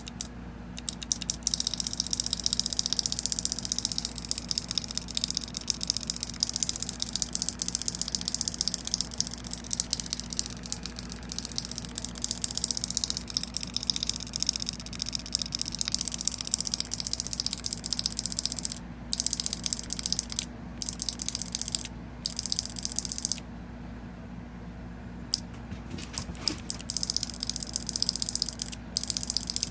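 Solenoid of a 2014 Proto Maxxed Rail paintball marker clicking rapidly and erratically in long runs, with brief stops and a pause of about two seconds near the end, over a steady low hum. The owner takes this for the solenoid misfiring.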